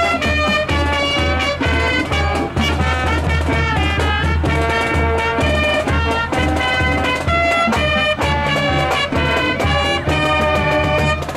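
Marching band playing a brassy tune, with trumpets and sousaphone over a steady bass-drum beat. The horns stop near the end.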